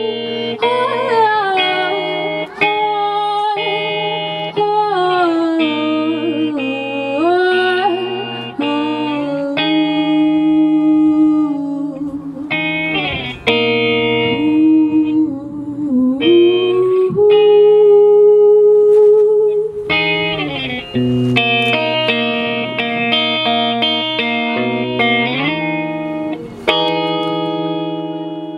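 Live band music: strummed guitar chords under a gliding, wordless melody line, ending on a last chord that rings out and fades near the end.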